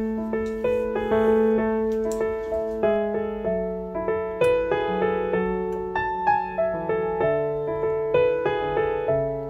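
Background piano music: a simple melody of struck notes over lower held notes.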